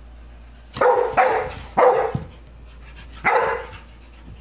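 Young dog barking at a cat: three barks in quick succession about a second in, then one more near the end.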